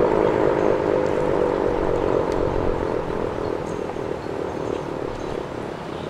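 10/12-port ACA Allertor 125 rotating warning siren winding down at the end of its alert signal. Its two-note chord slides slowly lower in pitch and fades, breaking up into a rough rumble by the end.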